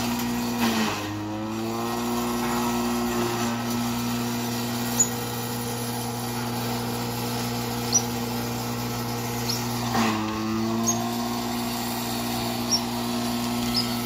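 Forage chopper (ensiladeira) running and grinding cassava roots. Its steady hum twice sags in pitch and climbs back as a load of roots is fed into the blades, with a few sharp knocks from pieces being chopped.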